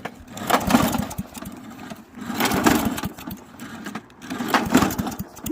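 Straight-piped lawn mower engine, muffler and airbox removed, running raggedly: it surges loudly in three bursts of rapid, uneven firing about two seconds apart, dropping back between them as it struggles to keep running.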